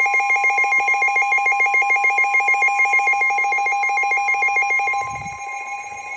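Midland weather radios sounding a warning alert: a rapidly pulsing electronic siren over the steady 1050 Hz NOAA Weather Radio warning tone. The pulsing siren stops about five seconds in, leaving the steady tone alone.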